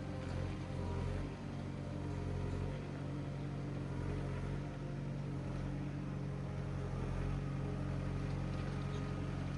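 A vehicle engine running steadily at an even, low speed, with no revving.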